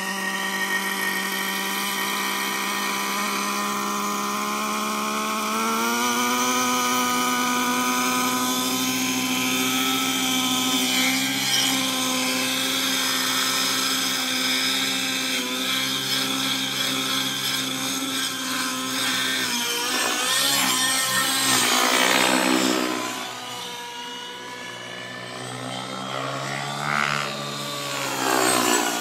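Align T-REX 700N RC helicopter's YS 120SR glow-fuel engine with tuned pipe running steadily, its note stepping up in pitch about six seconds in as the rotor speeds up. In the last third it twice swells and sweeps in pitch as the helicopter flies past.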